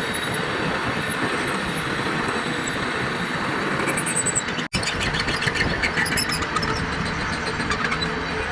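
Lathe running with its headstock gearing engaged: a steady, dense mechanical noise that drops out for an instant about halfway through.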